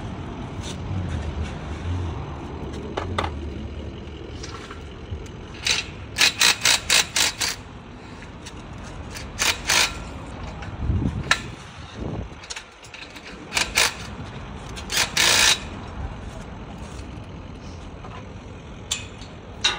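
Sharp metal clanks from fitting chain-link gate hinge hardware: a quick run of about six near the middle, then a few scattered ones later, over a low background rumble.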